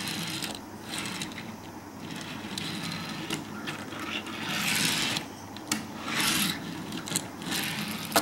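A Hot Wheels Slidekick die-cast toy car pushed and rolled across a wooden tabletop: several short rolling whirs of its small wheels, with a few sharp clicks in between.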